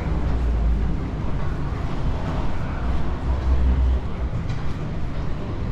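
Steady low rumble of a moving vehicle, with its weight in the deep bass and slight swells in loudness.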